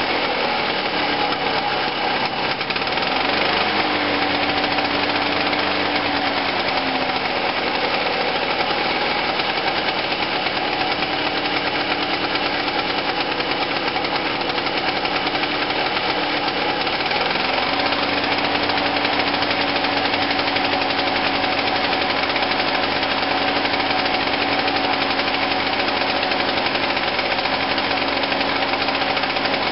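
Victa rotary lawn mower's two-stroke engine running on premix fuel after being cleaned and revived, its speed wavering now and then.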